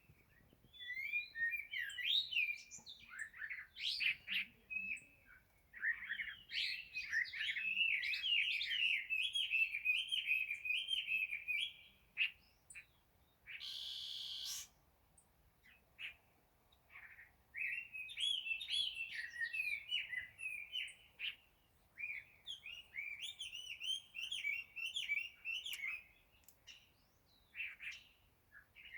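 Small cage birds singing in fast, warbling twittering phrases, in two long runs with a pause between them. About 14 seconds in there is a brief noisy rustle lasting about a second.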